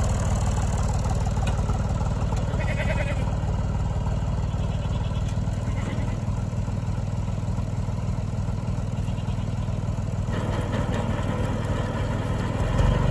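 Farm tractor engine idling steadily, with a goat bleating briefly about three seconds in.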